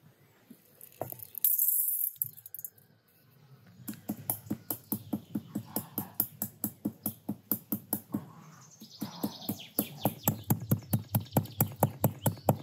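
A stone pestle pounding inside a small metal mortar bowl: a steady run of sharp strikes, about four a second, from about four seconds in, thinning briefly near the middle. Before that, about a second and a half in, there is a short, loud rushing noise.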